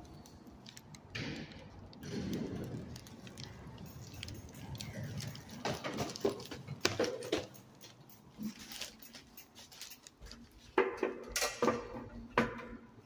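Sharp clicks and small metallic rattles inside a small elevator car, in two bunches about six and eleven seconds in.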